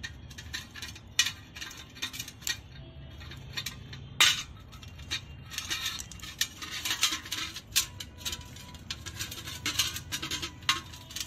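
Metal carburetor parts clicking and clinking against each other and against a metal pan as they are handled. The clicks are irregular, with two loud knocks about a second in and about four seconds in and quicker clusters after about six seconds, over a steady low hum.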